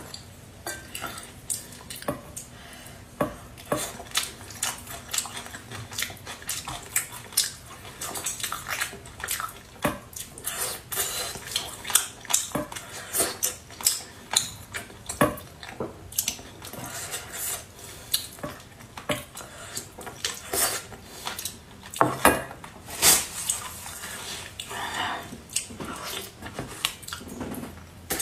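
Close-up eating sounds: chewing and mouthing of braised fish, with chopsticks and a metal spoon clicking irregularly against a metal bowl.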